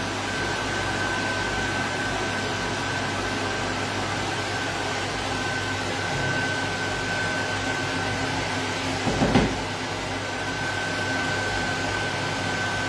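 Steady hum and hiss of a pot of pasta boiling on an electric hob, with a thin high whine running through it. A short clatter about nine seconds in as the pasta is stirred.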